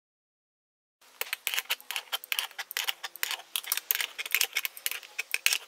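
Rapid, irregular metallic clicking and rattling from a steel case assembly puller being fitted and tightened on the crankshaft of a chainsaw crankcase, drawing the case halves together. It starts about a second in.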